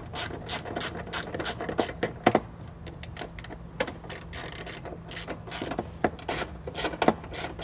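Hand socket ratchet clicking steadily as it backs out a 10 mm bolt, about three or four pawl clicks a second, with a short pause a little before the middle.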